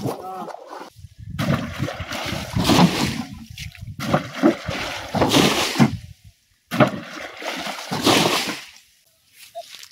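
Water being scooped up and flung out with a lehoti, a traditional bailing scoop, to drain a fishing pond. It comes as three or four loud rushing splashes a couple of seconds apart, with short pauses between throws.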